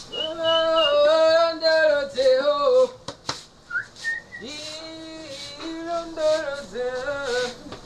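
A voice humming a wordless tune, in held notes that step up and down in two phrases. There is a single sharp knock about three seconds in.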